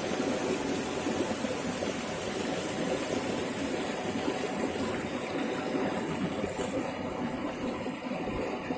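Steady rushing of flowing water, an even noise with no rhythm.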